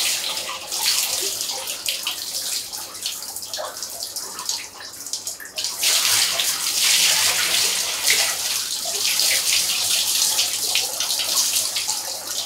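Water running and splashing in a bathtub, a steady hiss that eases off about four seconds in and grows louder again from about six seconds.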